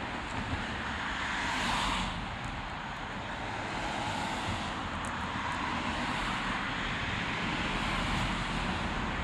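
Road traffic: cars passing along a multi-lane street, a steady hiss of tyres and engines that swells gently as each car goes by.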